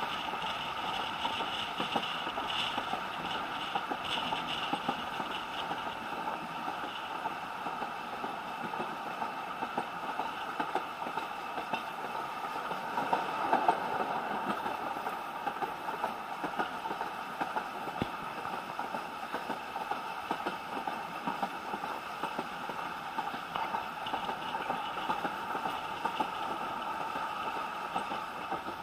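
Isle of Man Steam Railway narrow-gauge carriage running along the line, heard from inside the compartment. A steady rumble and rattle with frequent small clicks and knocks, swelling briefly about halfway through.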